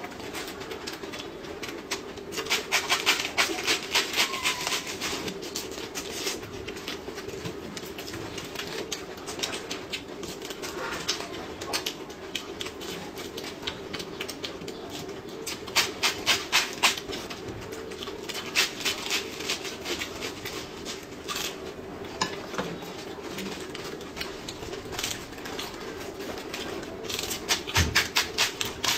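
Crisp crunching of raw lettuce leaves being bitten and chewed, coming in several bursts of rapid crunches, over a steady low hum.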